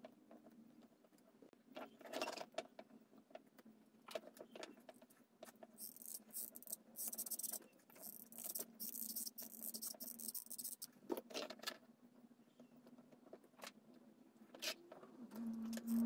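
Wooden craft sticks being handled and glued with a hot glue gun: scattered light clicks, taps and rustling, with a faint steady hum underneath.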